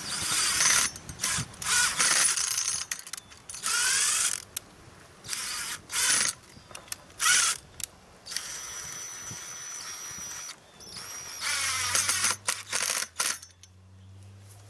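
Power drill driving screws in a series of short bursts, the motor whining up in pitch on several of them, with a longer steady run in the middle.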